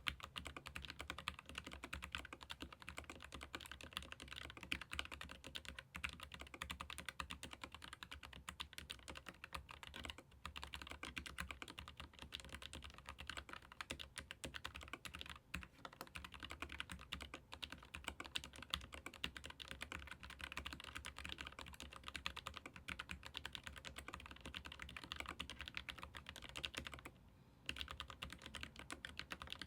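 Fast, continuous typing on a Keychron K15 Pro Max ergonomic mechanical keyboard with Gateron low-profile red linear switches: a dense run of rapid keystroke clicks, with one brief pause near the end.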